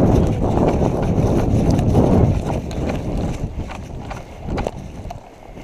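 Heavy rumbling movement noise on a body-worn camera, like gear and clothing rubbing against the microphone, easing off after about two seconds into irregular footsteps and small knocks.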